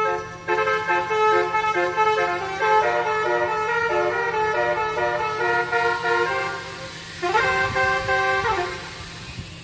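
Basuri telolet multi-tone air horn playing a quick tune of changing notes, then one long note that slides up about seven seconds in, holds, and slides back down near the end.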